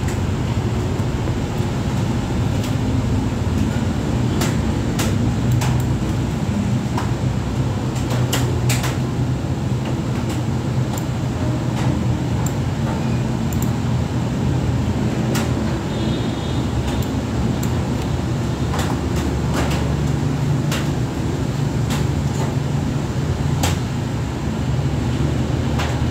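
Computer mouse and keyboard clicking now and then as web pages are opened and scrolled, over a steady low mechanical hum in the room.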